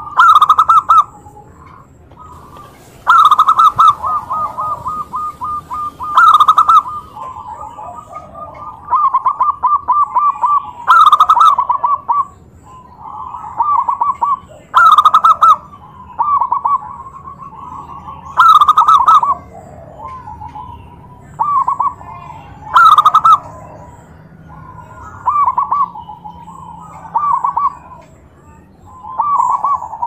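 Several zebra doves (perkutut) cooing. Each loud phrase is a quick run of staccato notes, a new one comes every three or four seconds, and quieter calls from other birds fill the gaps.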